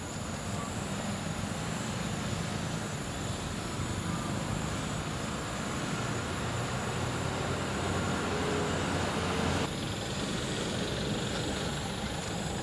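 Steady rumbling noise with a hiss, with no distinct event standing out; its character changes abruptly about ten seconds in.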